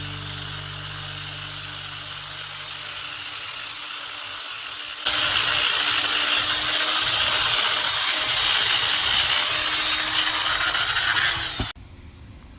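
A power sanding wheel running on wood: a steady high whine over a gritty hiss. About five seconds in it suddenly gets louder and harsher, and shortly before the end it stops abruptly.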